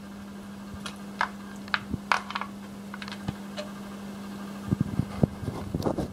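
Metal clicks and taps as a compression gauge's hose fitting is handled and screwed by hand into a spark-plug hole, with a rapid rattle of small clicks and knocks from about five seconds in. A steady hum runs underneath.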